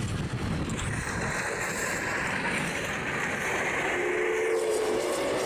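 Victorian Railways Y-class steam locomotive Y112 passing close with its train of wooden carriages: steady running noise of exhaust and wheels on the rail, with wind buffeting the microphone. A steady pitched tone joins near the end.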